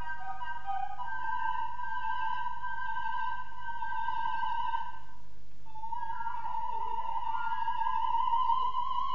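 Coloratura soprano singing unaccompanied high notes: a quick alternation between two notes, a long held note with vibrato, a brief break past the middle, then a slide up into another long held high note. A faint steady hum sits underneath.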